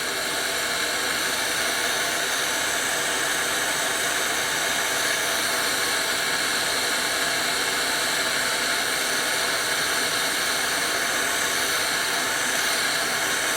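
Gas torch flame hissing steadily as it heats a hardened stainless steel rod in a machine vise, annealing it so that a hacksaw will cut it.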